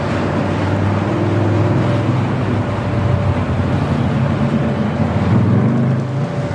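Ferrari Roma's twin-turbo V8 running at idle, heard at its quad exhaust tips. The pitch climbs slightly near the end and then drops back.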